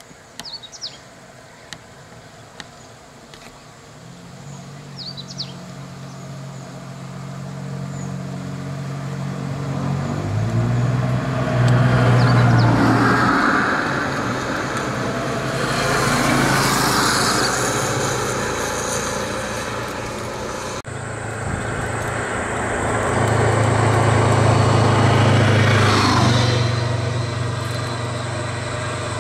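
Road vehicle engines running close by, a steady hum that swells as vehicles pass, loudest a few times, with a few bird chirps in the first seconds.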